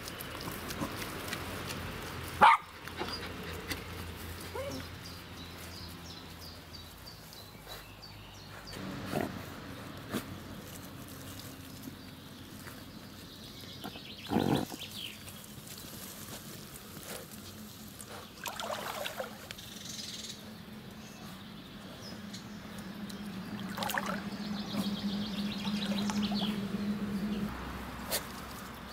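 West Highland White Terriers rooting and digging with their noses in wet mud and soil among ferns, with fern stalks rustling and scattered knocks, the sharpest and loudest about two and a half seconds in. A low steady hum runs from about halfway through to near the end.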